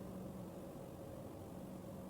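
Faint, steady drone of a distant jet airliner's engines, a low hum with a couple of steady tones over a light rushing noise.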